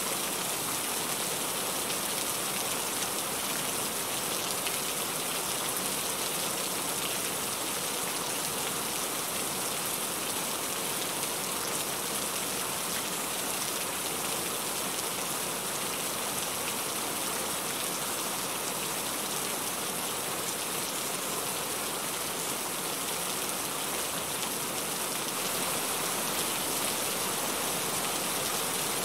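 Heavy rain falling steadily on a surface, a dense even hiss of many drops.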